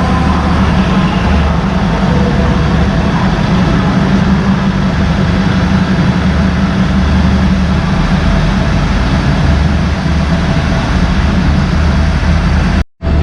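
Diesel train locomotive engine running steadily, a low even rumble. The sound cuts out for a moment near the end.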